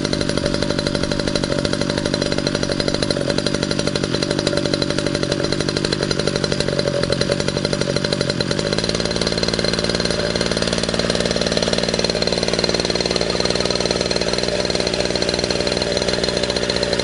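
Two-stroke gas engine of a Century Predator Gasser RC helicopter running steadily after a choked start. About halfway through, its note smooths out and edges up in pitch as it picks up speed.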